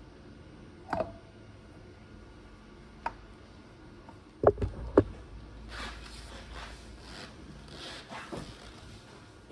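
Scattered sharp knocks of hard objects being handled, with a loud cluster of three knocks about halfway through, followed by a few seconds of scraping and rustling.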